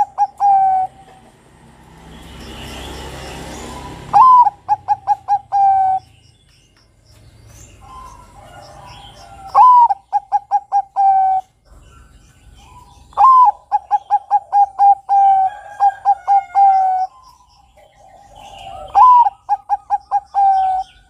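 Bangkok-strain zebra dove (perkutut) cooing: the end of one phrase at the start, then four more phrases a few seconds apart. Each opens on a high rising-and-falling note, runs into a quick string of short coos and ends on a longer held note.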